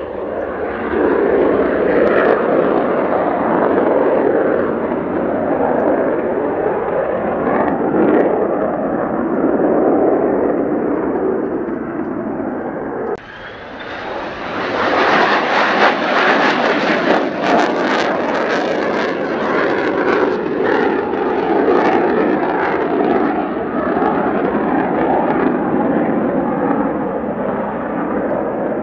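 Mitsubishi F-2 fighter's single turbofan jet engine at high power as the jet flies low and climbs away from a low approach. The sound breaks off abruptly about thirteen seconds in and comes back as a second stretch of loud jet noise with a crackling edge, easing slightly as the jet climbs out.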